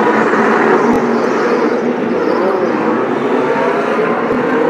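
Several IndyCar race cars, each with a 2.2-litre twin-turbocharged V6, running at speed around the oval, their engines overlapping in a loud, steady drone.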